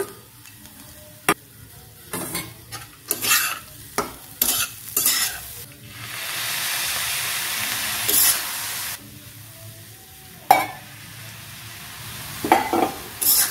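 A metal spatula scrapes and stirs semolina in a non-stick kadai, with short scrapes and a few sharp knocks against the pan. About halfway through, warm water poured into the hot pan sizzles steadily for about three seconds, then stops abruptly.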